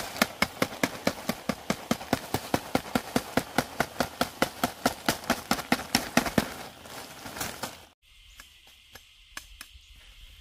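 A bamboo stick beating rapidly and evenly, about five strokes a second, on an ant nest over a plastic sheet to knock the ant eggs loose. About eight seconds in it cuts to a steady high insect buzz with a few faint clicks.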